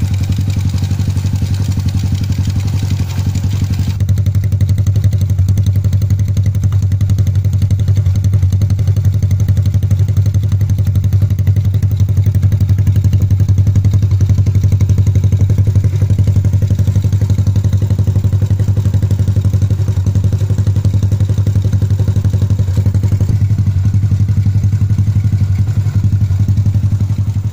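Modenas Kriss-100's small single-cylinder four-stroke engine idling steadily, freshly reassembled after a gearbox repair.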